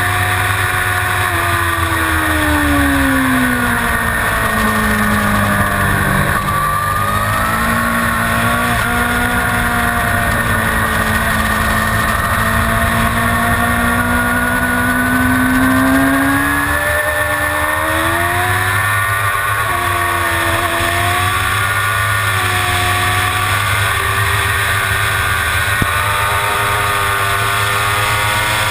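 Suzuki GSX-R750 inline-four racing motorcycle engine heard onboard at race speed. The engine note drops near the start as the rider slows, climbs steadily for about ten seconds under acceleration, then falls and rises again with shifts and braking over a steady low rush of wind.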